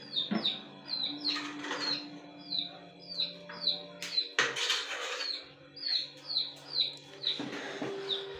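A bird chirping over and over: short falling chirps, two or three a second, with a few brief rustling noises in between.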